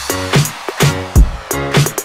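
Background electronic music with a steady drum beat and pitched chord hits.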